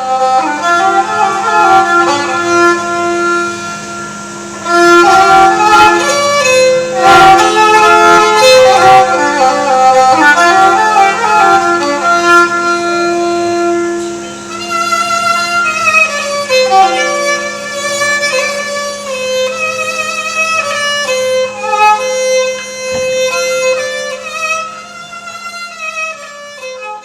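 Nepali sarangi bowed in a folk melody with slides between notes, over a steady low drone.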